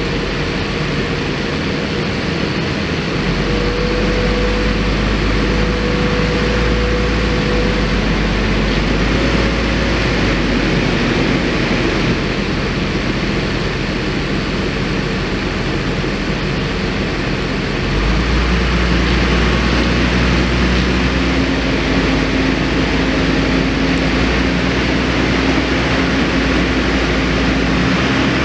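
Engine of a heavy work truck running steadily under load as it slowly pulls a log cabin on a trailer; its low hum grows louder about 3 seconds in and again about 18 seconds in.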